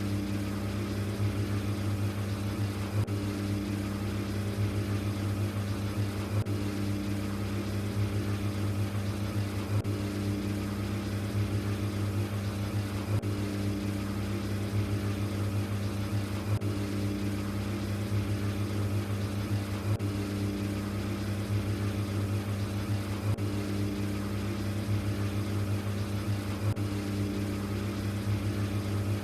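LG ThinQ washing machine running with a steady low hum from its motor and drum, with a faint pulsing tone above it.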